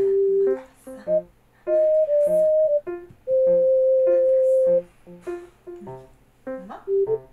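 Background music: a light tune of short pitched notes, with one long held note about three seconds in.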